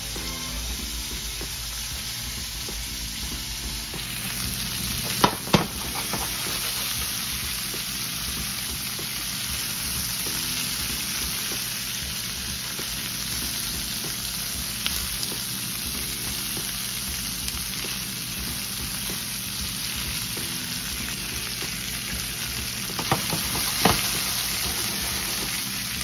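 Asparagus spears sizzling in a nonstick frying pan, a steady hiss. Tongs click against the pan twice about five seconds in and a few times near the end as the spears are turned.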